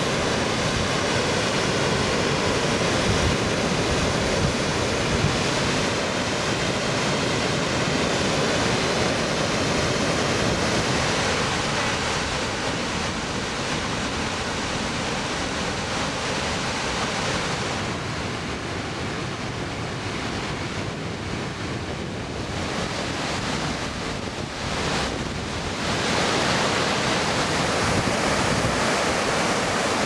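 Waterfall on the Skógá river: a continuous rush of heavy water plunging over a rock lip into a canyon.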